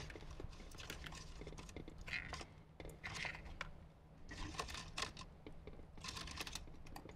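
Faint rustling and clicking of hands feeding a thin cable through the dash wiring and plastic panels, in irregular short bursts over a steady low hum.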